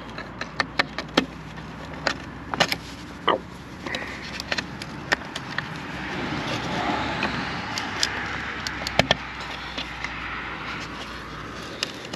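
Sharp plastic clicks and taps from handling the rear-view camera's wiring connector inside the liftgate trim panel as the plug is pushed together; the connector itself gives no latching click. In the second half a broad rushing noise swells and fades.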